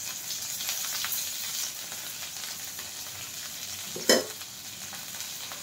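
Chopped okra frying in hot mustard oil in an aluminium kadai: a steady sizzle with scattered small crackles, and a single sharp knock about four seconds in.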